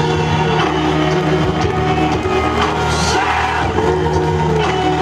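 Loud recorded music with a singing voice, playing without a break.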